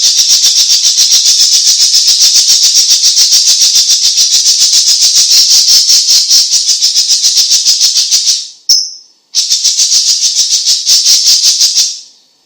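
Cucak ijo cina (cucak cungkok) leafbird singing a long, rapid rattling trill of about ten high notes a second, with a short break about nine seconds in, then fading out near the end.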